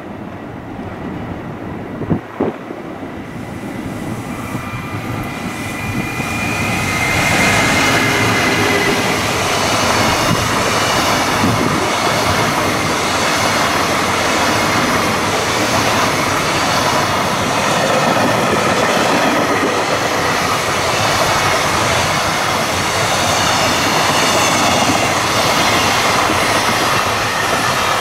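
A container freight train running through the station: the noise of its wheels on the rails builds over the first several seconds as it draws near, then stays loud and steady as the container flatcars roll past, with faint high wheel whines over it. Two sharp clicks come about two seconds in.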